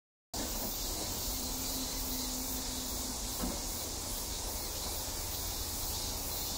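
Steady summer insect chorus, an even high-pitched hiss, over a low wind rumble. A faint low hum sounds briefly in the first half, and a single click comes midway.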